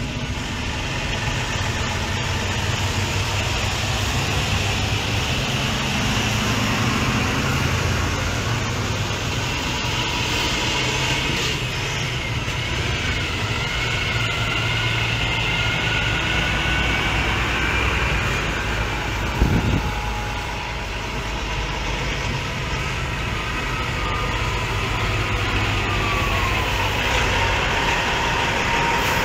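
Diesel engines of semi tractor-trailers running as the trucks drive slowly past one after another, with a steady low rumble and a faint whistle that glides up and down in pitch. A single sharp knock about two-thirds of the way through.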